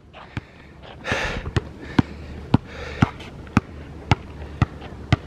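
Basketball bouncing on a hard court: a couple of loose bounces, then steady dribbling at about two bounces a second.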